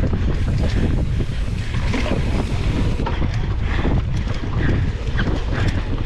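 Wind buffeting an action camera's microphone on a mountain bike ridden fast over rough grass, a steady loud rumble with scattered short knocks from the bike.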